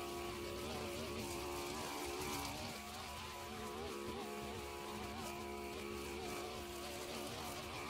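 Husqvarna 531RB two-stroke brush cutter running while cutting grass: a steady buzzing whine whose pitch wavers up and down as the engine takes load.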